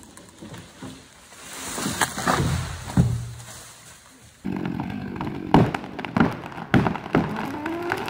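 A felled tree coming down: branches rustling and swishing through the canopy, building to a heavy thud as it hits the ground about three seconds in. After a break, several sharp cracks and knocks.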